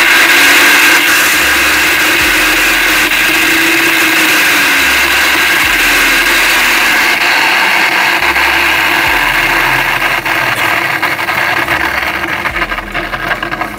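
Sujata mixer grinder motor running at speed with a loud, harsh noise. The noise comes from a broken motor bearing.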